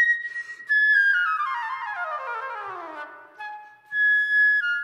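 Concert flute playing: a held high note ends, a short breath, then a fast run of notes descending for about two seconds, and a held high note near the end.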